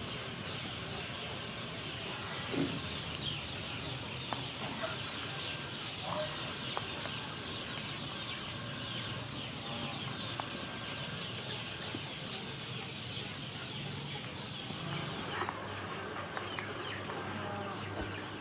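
Chickens clucking now and then over a steady high hiss of outdoor background noise.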